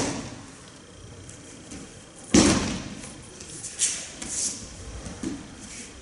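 Aikido partners taking breakfalls on the tatami mat: a thud right at the start and a louder body-slam about two and a half seconds in, then lighter thuds and brushing of feet and clothing on the mat.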